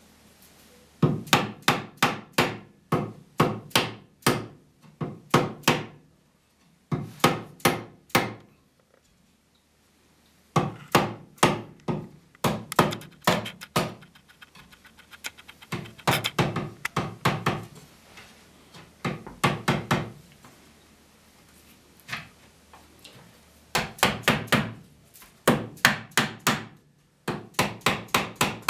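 Rapid wooden knocks in quick runs of several blows with short pauses between, as the wooden comb of a Windsor chair is driven down onto its spindles in a dry fit.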